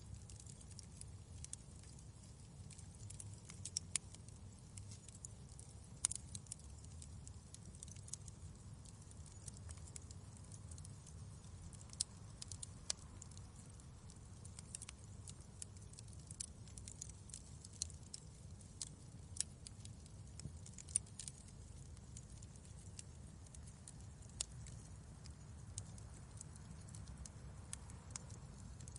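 Wood fire crackling in a fireplace: frequent irregular sharp pops and snaps, a few louder than the rest, over a low steady rumble.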